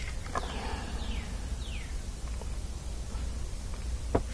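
Chainsaw guide bar and chain being handled and set down: a few light clicks, then two sharp knocks close together near the end.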